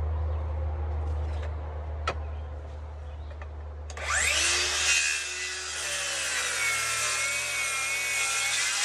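A steady low hum, then about four seconds in a power saw starts cutting through lumber: loud, noisy cutting with a wavering whine that lasts to the end.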